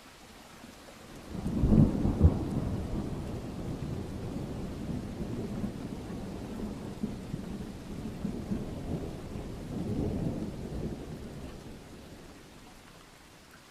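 A rumble of thunder over steady rain: it breaks with a sharp crack about a second and a half in, rolls on with a second swell, then fades out near the end.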